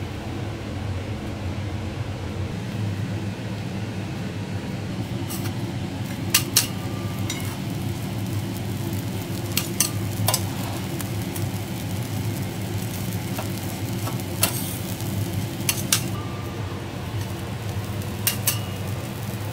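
Hot teppanyaki griddle sizzling steadily over a low hum, with steel spatulas clicking and scraping on the steel plate as coarse salt is cleared off a kelp bed. The clicks start about five seconds in and come every second or few, often two close together.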